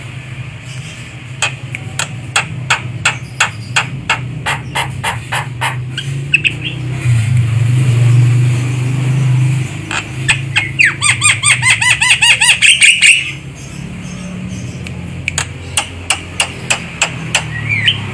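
Javan myna calling: runs of sharp, rapidly repeated clicking notes, and from about ten to thirteen seconds in a fast series of short chirps, over a steady low hum.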